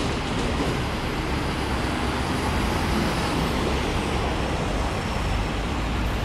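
Steady road traffic noise with a double-decker bus approaching slowly and pulling in toward the stop, its engine rumbling low. A faint high whine comes and goes in the first half.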